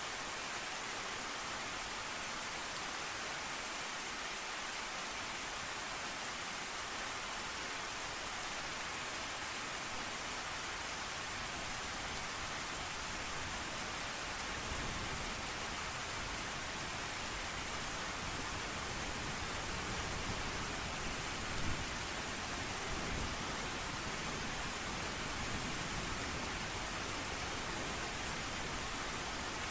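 Steady rain hiss. From about halfway, a low rumble of distant thunder swells beneath it, peaking about two-thirds of the way through.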